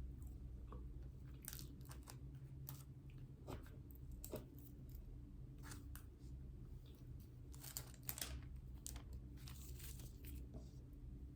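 Eating sounds at a mukbang: faint, irregular crisp crackles and crunches, a cluster loudest about eight seconds in, over a low steady hum.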